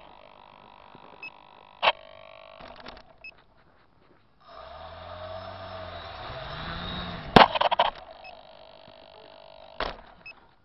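Quadcopter motors heard through the drone's own onboard camera while it sits in snow: a steady electronic whine with a few sharp clicks. About four and a half seconds in, the motors spin up for a few seconds and then drop back.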